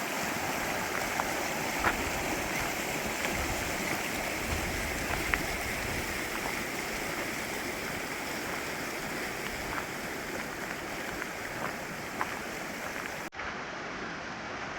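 Steady rushing of a mountain stream running over rocks, with a few small splashes and ticks. Near the end it cuts to a duller, more muffled rushing.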